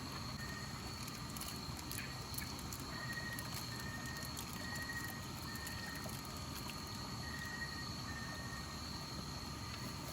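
Night insects calling: a steady high-pitched trill runs throughout, with a lower short chirp repeated in runs about every half second, over a low rumble.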